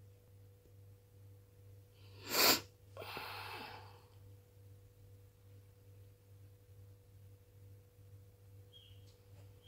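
A single short, sharp sneeze about two seconds in, followed by about a second of breathy noise, over a steady low hum.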